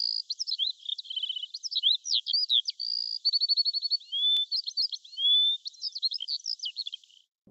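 A songbird singing a rapid, varied song of whistled chirps, slurred notes and quick trills, stopping near the end.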